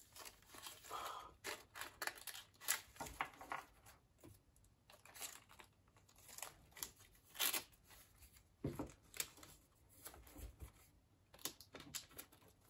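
Hands handling a stack of card postcards and a clear plastic wrapper: soft, intermittent rustling and scraping, with a few short tearing-like rasps.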